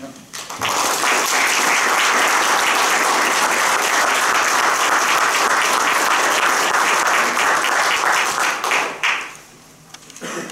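Audience applauding, starting about half a second in and dying away after about nine seconds.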